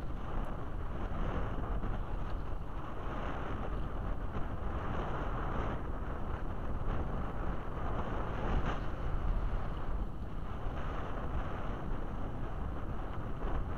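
Strong wind buffeting the microphone, with choppy water lapping and sloshing close by.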